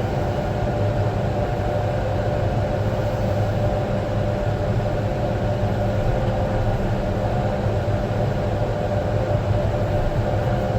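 Caterpillar D8T bulldozer's diesel engine running steadily under light load while the machine creeps into position on the trailer ramps.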